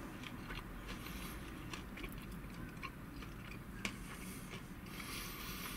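A man chewing a mouthful of fried chicken with his mouth closed: faint chewing with scattered small clicks, one a little louder about four seconds in.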